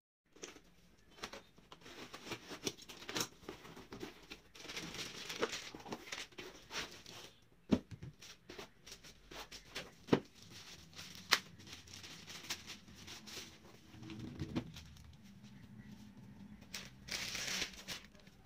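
Unpacking a laptop by hand: a cardboard box being handled and a plastic protective sleeve crinkling and tearing as it is pulled off, with a few sharp knocks and clicks along the way.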